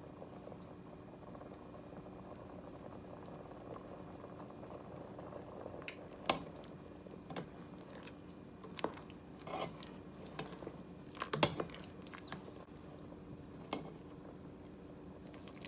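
Thick beef soup with cream cheese simmering in a pot: a steady low bubbling, with scattered sharp pops and clicks from about six seconds in.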